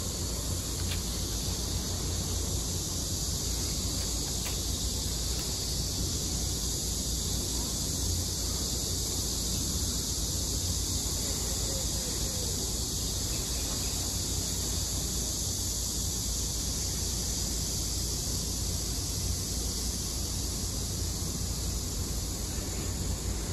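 Steady outdoor ambience: a constant high chirring of insects over a low, even rumble.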